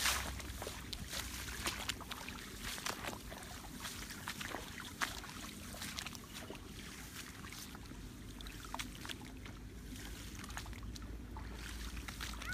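Footsteps swishing through tall grass and sloshing in shallow marsh water, with frequent short rustles and splashes over a low wind rumble on the microphone.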